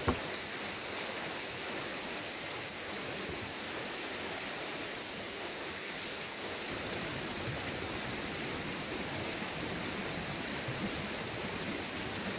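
Steady rushing background noise, with one sharp knock right at the start.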